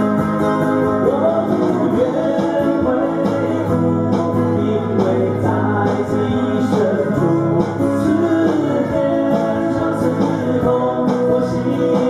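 Two men singing a song live, accompanied by two strummed, amplified skeleton-frame silent guitars; the voices come in about a second in over the guitar chords.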